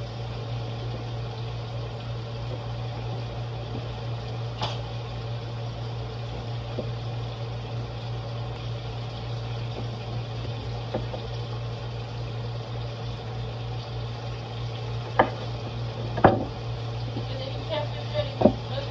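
Food frying in hot oil, a steady sizzle with a low hum underneath. A few sharp knocks come in the last few seconds.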